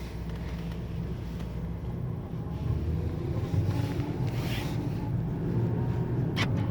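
A steady low mechanical rumble, with a short hiss about four and a half seconds in and a brief sharp click near the end.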